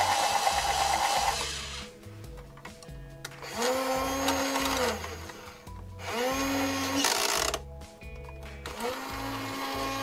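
Electronic helicopter sound effect from a Dickie Toys rescue helicopter toy's speaker, cutting off about a second in. Then the toy's battery-powered winch motor whirs in three short runs, each rising in pitch as it starts and falling as it stops.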